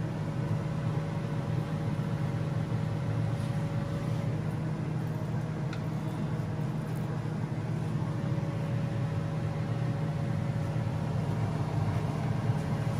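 Steady low hum with an even faint hiss as salmon fillets fry in butter in a hot grill pan, with a couple of light clicks a few seconds in.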